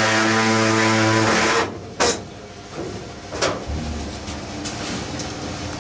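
A power tool running at a steady pitch, making the last cut that frees the roof from the car body; it stops abruptly after about a second and a half. A single sharp knock follows about two seconds in, then a few lighter knocks.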